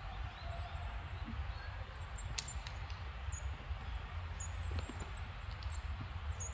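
Outdoor winter ambience: a steady low rumble with faint, very high, short chirps of small birds scattered through it, and a single sharp click about two and a half seconds in.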